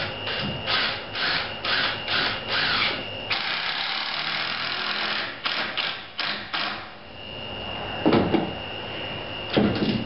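Cordless drill driving a deck screw into a wooden framing stud, on a fresh battery. It runs in short trigger bursts, then steadily for about two seconds, then a few more short bursts as the screw seats. Two knocks follow near the end.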